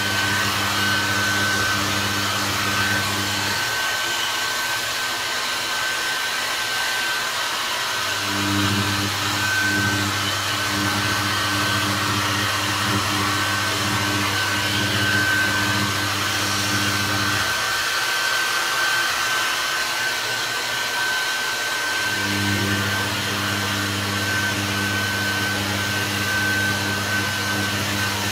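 Handheld hair dryer running steadily, a constant rushing blow with a thin high whine. A low hum underneath cuts out twice for about four to five seconds, then returns.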